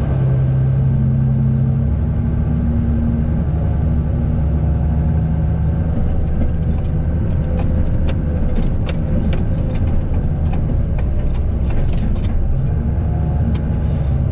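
Farm machine engine running steadily, with a held tone in the first two seconds and scattered light knocks and clanks through the second half.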